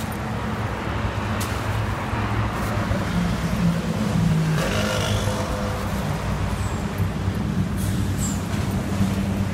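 Steady road traffic, a continuous low drone of engines and tyres, with a brief higher-pitched tone about five seconds in.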